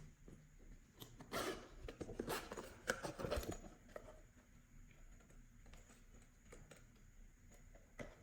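Slime being worked by hand: irregular sticky crackles and small clicks, busiest for the first few seconds, then sparser and quieter.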